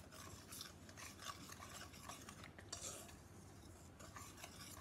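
Faint stirring of dry flour mix in a stainless steel mixing bowl: irregular light scrapes and clinks of a utensil against the metal.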